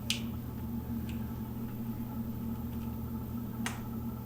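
A few short sharp clicks from small parts being handled on a workbench, one just after the start, a faint one about a second in and another near the end, over a steady low hum.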